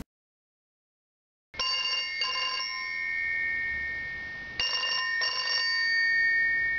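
Electronic telephone ringing in a double-ring pattern, starting about one and a half seconds in: two short rings close together, then another pair about three seconds later, over a steady electronic tone.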